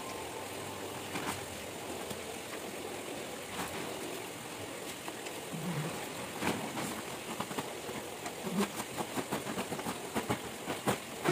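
Steady splashing of a waterfall spout pouring into an aquarium, with rustling and crinkling of a plastic tarp and tent fabric being handled; the crinkling grows busier in the last few seconds.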